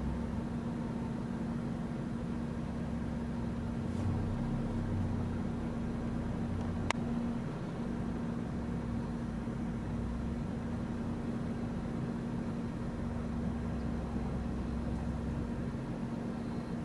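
An engine running steadily, with a constant hum over a low, uneven rumble and a couple of faint clicks.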